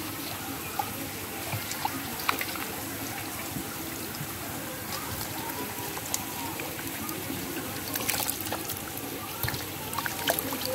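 Live shing (stinging catfish) wriggling in a packed mass in shallow water, with water sloshing and trickling off them and a few sharp little splashes, a cluster of them about eight seconds in.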